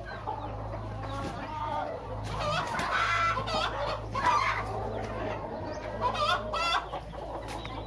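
A flock of country chickens clucking, with many short overlapping calls and an occasional crow-like call.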